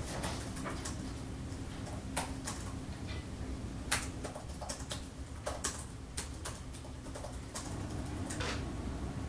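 Scattered, uneven clicks of keys tapped on a laptop keyboard, over a low steady room hum.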